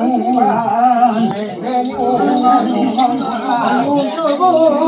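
Limbu samba's ritual chanting: a voice intoning in long, wavering, sung tones.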